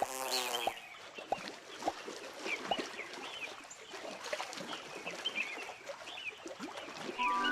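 Wildlife sound-effect ambience: scattered short bird-like chirps and a few sharp clicks, with an insect buzz fading out in the first second. Music comes in near the end.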